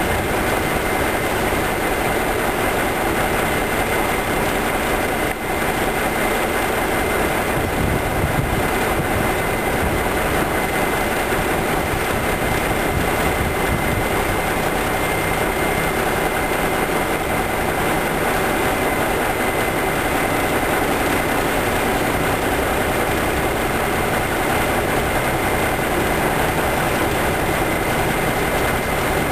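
Diesel freight locomotives idling with the train stopped: a steady rumble and hiss with a faint steady high tone running through it.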